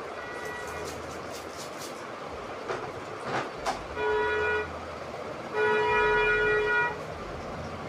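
A vehicle horn honks twice from outside: a short blast about four seconds in, then a longer one about a second later, over steady background noise.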